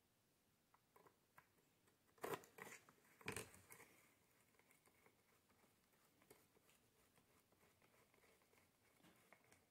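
Mostly near silence, broken by small metallic clicks and taps of a screwdriver and pliers on the helicopter frame's screws and nuts, with a few sharper clicks about two to four seconds in.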